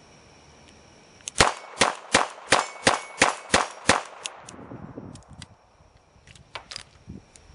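Eight rapid .22 LR shots from a Smith & Wesson 317 kit gun revolver, about three a second, emptying its eight-shot cylinder, followed by a few faint clicks.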